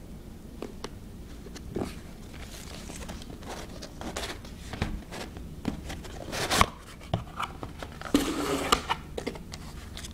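Hands handling a boxed airsoft M1911 pistol and its packaging: scattered clicks and knocks with stretches of rustling, the loudest knock about six and a half seconds in.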